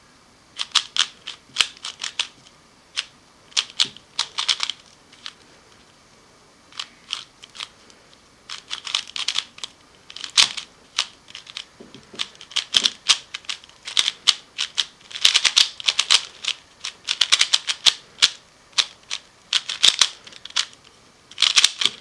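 A stickerless Valk 3 3x3 speedcube being turned fast during a solve. Its plastic layers clack in quick flurries of clicks, broken by short pauses. The new cube is tensioned a little too tight out of the box, in the solver's view.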